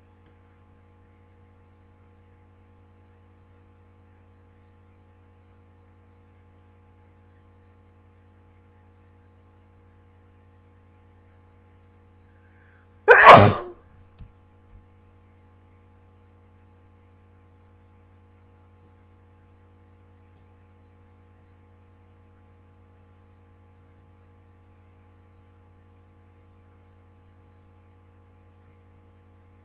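One sharp human sneeze from a person with a cold, about a second long, near the middle, over a faint steady low electrical hum.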